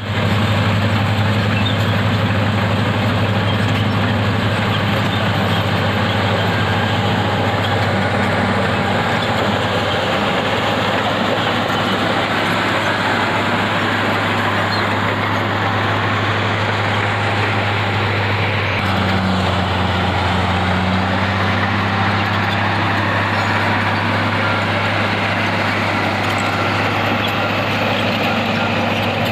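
Diesel engine of heavy mining machinery running steadily with a low, even hum; the pitch shifts slightly about two-thirds of the way through.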